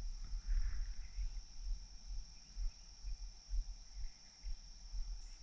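Outdoor woodland ambience: an uneven low rumble of wind on the microphone, a steady high thin tone, and a few faint bird chirps.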